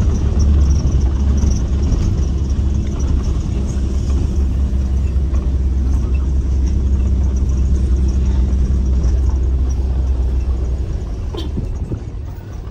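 Steady low rumble of a vehicle in motion, easing off near the end.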